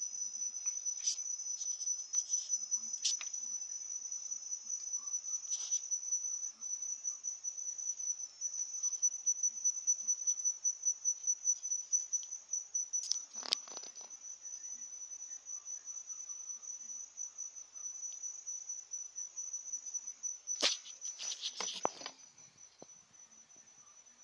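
A cricket trilling: one steady, high, rapidly pulsed note that grows fainter near the end. A few clicks and knocks break in, the loudest in the middle and shortly before the end.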